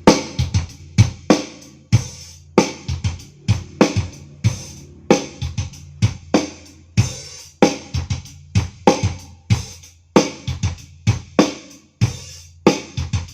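Drum-beat music played loud through an AD NUX 15A powered speaker: kick, snare, hi-hat and cymbal hits in a steady rhythm over a sustained bass. At this volume the speaker's plastic molded cabinet vibrates along with the bass, which the owner points out as a buzzing from the box.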